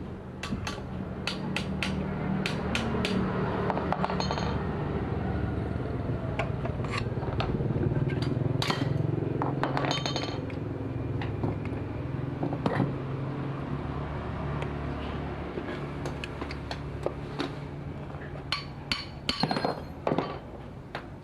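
Parsun 3.6 hp outboard motor running steadily at low speed, with repeated sharp metallic clinks and taps over it.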